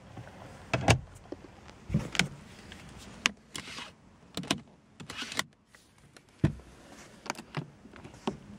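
Plastic interior trim of a 2008 Lexus IS-F being handled: a knock as the glove box lid shuts about a second in, then scattered clicks and knocks as the sun visor, its vanity mirror cover and the roof grab handle are moved.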